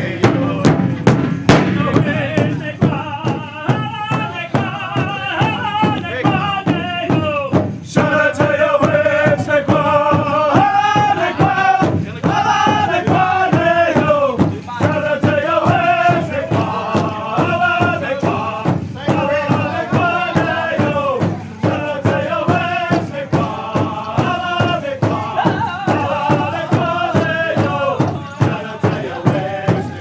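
Powwow drum and singers: a steady, even drumbeat under a group of voices singing a chant-like song.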